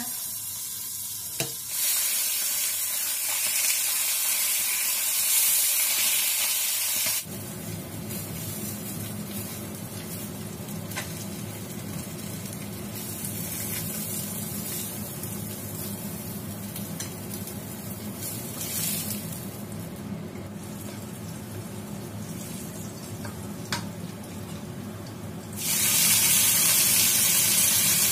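Oil sizzling in a wok as fish pan-fry and then as vegetables with garlic are stir-fried, with a steady hiss that is louder for several seconds about two seconds in and again near the end. A few sharp clicks of a wooden spatula against the pan come in the quieter middle stretch.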